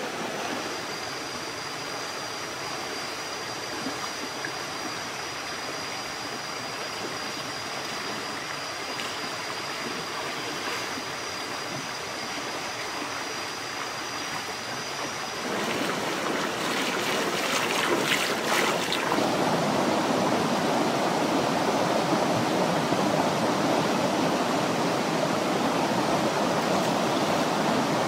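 Rocky jungle stream flowing, a steady rush of water, with a thin steady high whine over it until about halfway. The water then turns louder, with a few seconds of sharper sounds, and runs on as a fuller rush.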